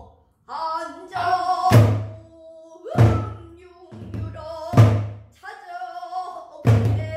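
A woman singing a Korean Namdo sori danga in a full, bending pansori-style voice, accompanied by a buk barrel drum. The drum gives four strong strokes, spaced one to two seconds apart.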